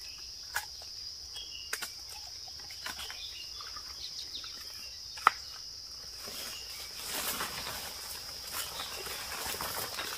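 Insects keep up a steady high-pitched drone, with a few sharp clicks, the loudest about five seconds in. From about seven seconds in, footsteps and rustling through dry bamboo leaf litter grow louder.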